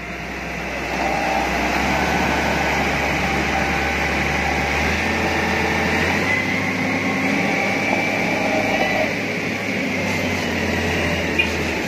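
Diesel dump truck engine running hard under load as the loaded truck is towed by rope up a rutted dirt track, a steady drone with a whine that shifts in pitch.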